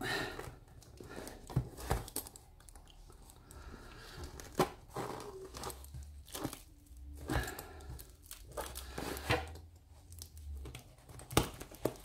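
Paper parcel wrapping being torn open and crumpled by hand, in intermittent rustles with a few sharp knocks as the box inside is wrestled with.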